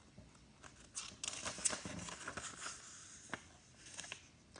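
Soft paper rustling and a few light clicks, as of a picture book's page being turned and handled.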